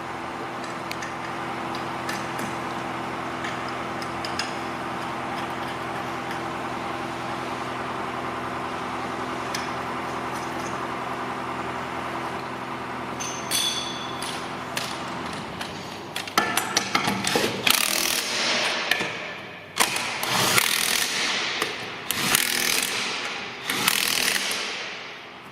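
A steady mechanical hum, then from about two-thirds of the way through a series of loud, irregular rattling bursts from a tool tightening a wheel's nuts.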